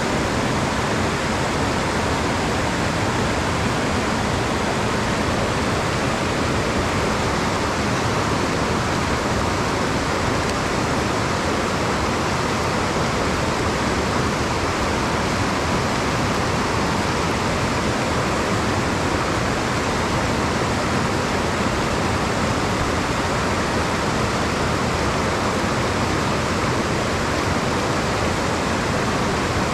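Shallow rocky stream rushing over boulders and small cascades, a steady, unbroken water noise.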